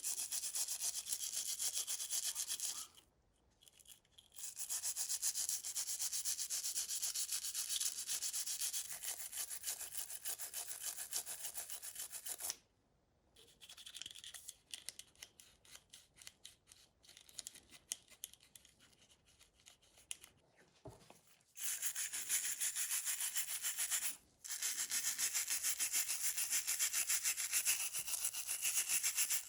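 Fast back-and-forth abrasive rubbing by hand on a small metal part of the lighter, as in restoring its aluminium body. The rubbing stops briefly about three seconds in and again near the middle. It continues as slower, separate strokes for several seconds, then goes back to fast rubbing with one more short break.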